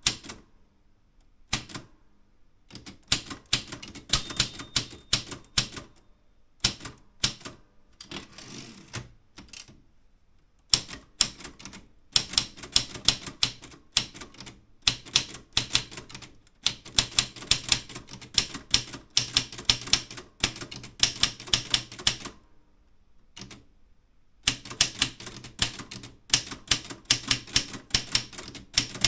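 Typewriter being typed on: runs of fast, sharp keystroke clacks in bursts of a few seconds with short pauses between, and a short ring about four seconds in, like the margin bell.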